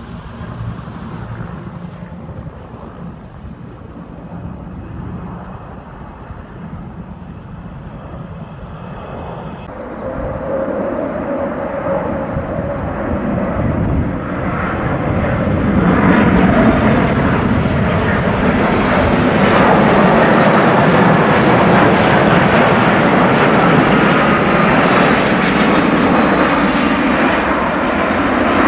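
Twin-engine jet airliner, a Boeing 787 by its look, in a low banking pass: its engine noise swells and then holds loud and steady, with a faint falling whine. Before it, about the first third is quieter, distant aircraft noise with wind.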